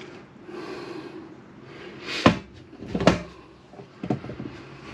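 Plastic water-filter housing and carbon block cartridge being handled and set down on a countertop: two sharp knocks less than a second apart in the middle, then a fainter one.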